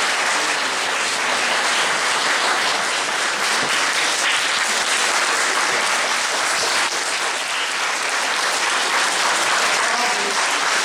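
Audience applauding steadily, many hands clapping together in a hall.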